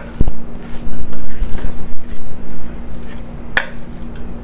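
Wooden spoon stirring a thick, chunky mix of ground beef, beans and corn in a slow cooker's ceramic crock: low thuds and scraping, then a sharp click about three and a half seconds in, over a steady low hum.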